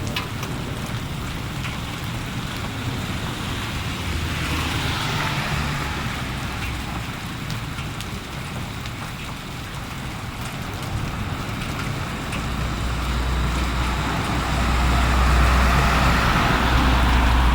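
Steady rain hiss with vehicles passing on a wet road: one swells and fades about four to seven seconds in, and a louder one with a low rumble builds from about twelve seconds in to the end.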